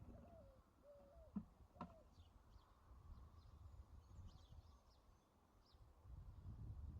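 Faint outdoor ambience: small birds chirping in short, scattered calls over a low rumble. Two light clicks come close together at about a second and a half in.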